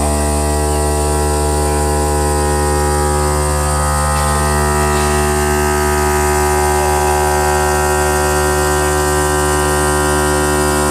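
CNC stone cutting and polishing machine running with a steady hum made of many stacked tones, holding at one speed.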